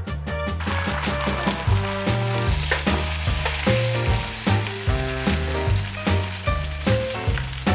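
Egg frying in a hot pan, a steady sizzle that comes up about half a second in, over background music with a pulsing bass line.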